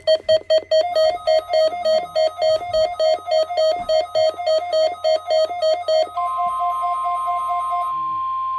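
Rapid electronic beeping from a weather radio, about four or five beeps a second. About six seconds in, the steady NOAA Weather Radio warning alarm tone starts and holds; it is sounding as the weekly test of the station's warning alarm.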